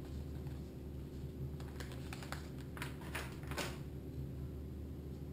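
A quick run of light clicks and crinkles, lasting about two seconds, from a plastic bag of ground almonds being handled and put down over aluminium foil, over a steady low hum.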